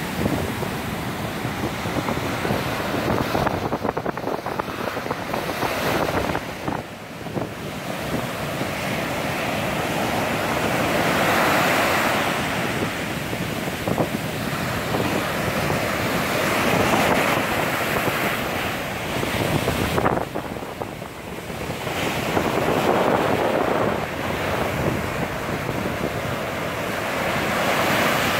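Sea surf breaking and foam rushing up and draining off the sand, stirred up ahead of a tropical storm; the rush swells louder about every five or six seconds as each wave comes in. Wind buffets the microphone.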